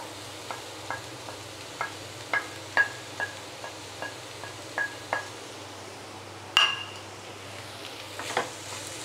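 Wooden spatula tapping and scraping scrambled egg off a ceramic plate into a frying pan: a string of light clinks, each with a short ring, then one louder clink about six and a half seconds in.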